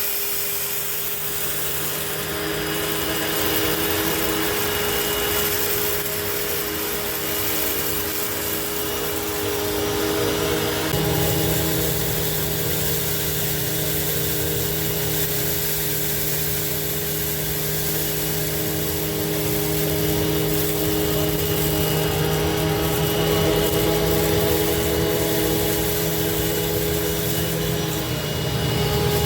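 A 12-amp Hoover WidePath Fold Away upright vacuum running steadily, a motor hum with a whir on top, during a pickup test on a small spread of dirt. The low hum gets stronger about eleven seconds in.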